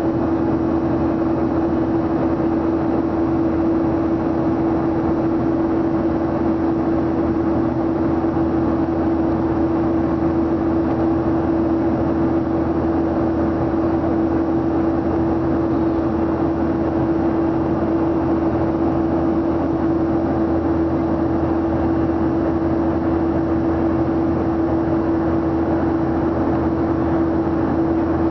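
Airliner cabin noise in flight: the jet engines and rushing air make a loud, unbroken roar with a steady hum under it.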